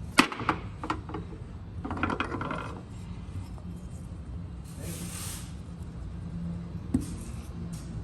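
Scattered sharp clicks and knocks, a short stretch of rubbing or scraping about two seconds in, and a brief hiss about five seconds in, over a steady low hum.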